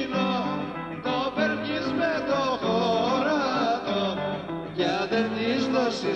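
Greek folk music: a voice singing a wavering melody over string instruments.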